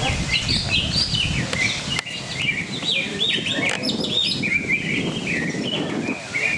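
Several caged cucak ijo (green leafbirds) singing against each other, a dense, overlapping stream of quick chirps and whistled phrases, over a low murmur of voices.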